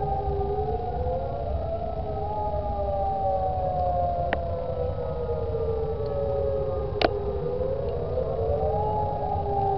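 Several lahar warning sirens sounding a test at once and out of step, each wailing up fairly quickly and sliding slowly back down, so their tones overlap and cross. A sharp click about seven seconds in, and a fainter one a few seconds earlier.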